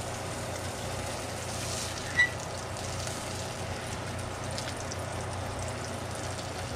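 Mangrove snapper fillets frying in shallow oil in a skillet, a steady sizzle, with a single short clink about two seconds in.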